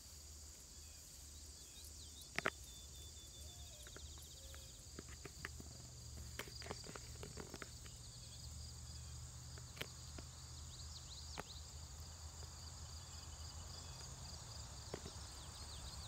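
Insects chirring steadily in a summer meadow, a faint high continuous buzz, with a brief trill a few seconds in and a few soft clicks scattered through.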